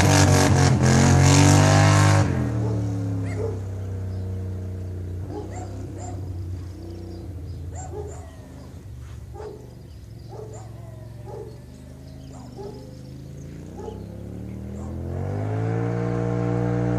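Polaris XP 850 engine through a Big Gun aftermarket exhaust: revved high, dropping to idle about two seconds in, idling, then revving up again near the end.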